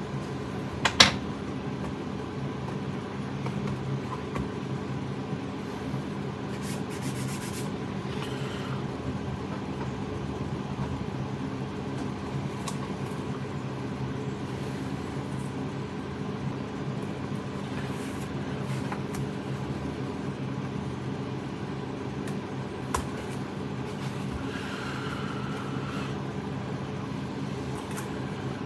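A steady low mechanical hum runs throughout. Over it come a few small sharp clicks and handling noises as gloved hands work a small plastic model part and masking tape on a bench, the loudest click about a second in.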